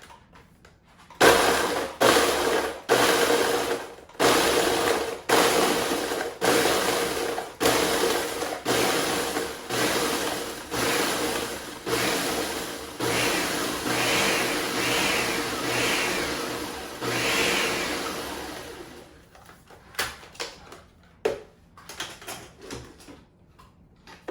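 Ninja food processor pulsed over and over, grinding graham crackers to a fine crumb: short motor bursts about once a second, the later ones held a little longer with the motor's whine rising and falling. It stops a few seconds before the end, followed by a few light clicks.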